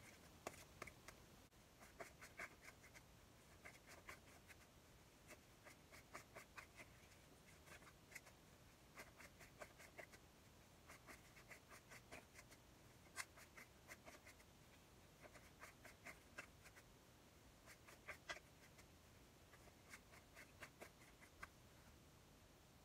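A deck of tarot cards being shuffled by hand: faint, soft flicking of cards in short bursts every second or so, ending shortly before the deck is set down.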